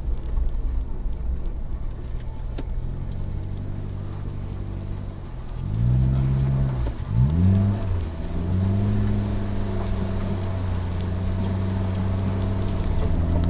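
Suzuki Jimny's engine pulling the 4x4 along. Its pitch rises and falls twice around the middle, then holds a steady, higher note.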